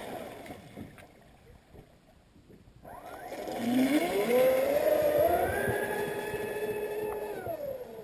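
Brushless electric motor of an RC racing catamaran turning a 51 mm propeller: a whine that climbs steeply in pitch from about three seconds in as the boat accelerates, holds high and steady at speed, then drops near the end as it eases off.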